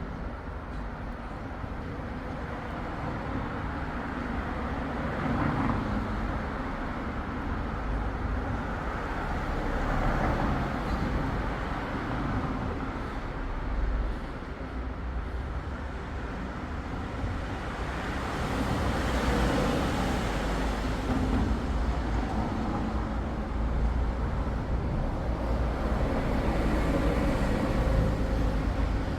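Motor vehicle and road traffic noise: a steady low rumble that swells and fades several times as vehicles pass.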